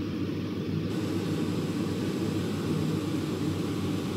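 Steady low rumbling background noise with no distinct events; a faint high hiss joins about a second in.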